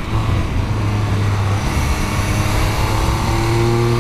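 Sports motorcycle engine pulling at fairly steady revs on the road, its pitch easing slightly and then rising a little near the end, over the rush of wind on the microphone.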